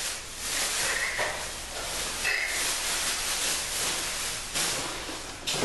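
Plastic wrapping and cardboard packaging rustling and crinkling as a new vanity light fixture is unwrapped and pulled out of its box.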